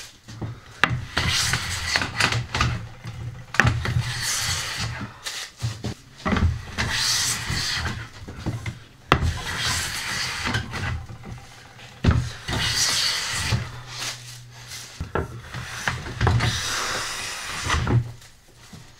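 Japanese wooden hand plane (kanna) shaving a wooden board, with about six long strokes one after another, each a hissing slice a second or two long. Short sharp knocks come between the strokes as the plane is set down and lifted.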